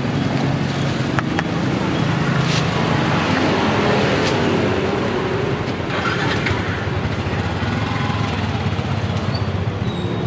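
Street traffic running steadily, with engines humming, and a few light clicks.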